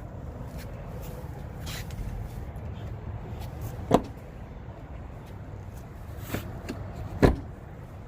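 A steady low rumble with two sharp clicks or knocks, about four seconds in and again about three seconds later.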